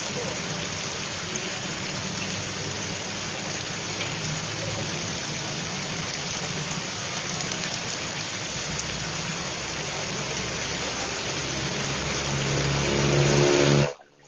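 Heavy rain pouring steadily onto a wet road. From about 11 seconds in, a bus engine approaches and grows louder, then the sound cuts off suddenly just before the end.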